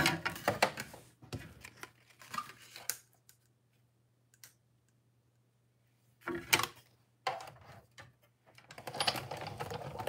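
Hands handling cardstock, a thin metal cutting die and plastic sheets on a craft cutting mat: light clicks, taps and paper rustling in short bursts, a few seconds of quiet in the middle, then steadier rustling and clatter in the last second or so.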